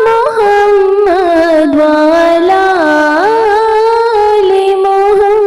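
Naat sung in a high voice without instruments: long held notes joined by smooth slides up and down in pitch, in a drawn-out melismatic line.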